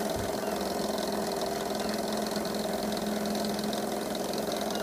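G F Mars high-speed model steam engine running steadily and quickly under steam on the bench, an even mechanical hum with a hiss above it.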